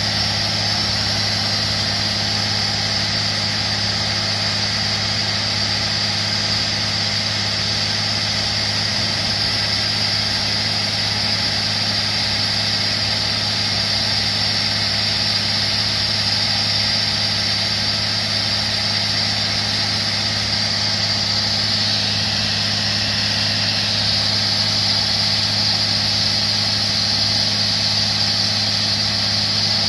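Truck-mounted water bore drilling rig running steadily: a constant engine hum with a strong steady hiss over it, as water is blown up out of the bore hole.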